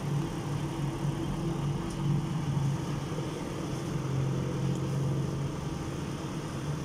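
A motor vehicle engine idling with a steady low hum, amid the noise of street traffic.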